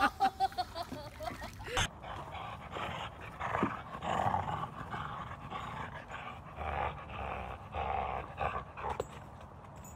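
Small dog growling as it clings to a stick in a game of tug-of-war.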